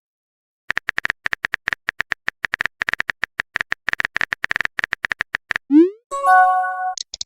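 Chat-app sound effects: rapid, irregular keyboard tapping clicks for about five seconds, then a short rising swoosh of a message being sent, and a chime of a few steady tones with a quick high chirp near the end, the alert for a new message.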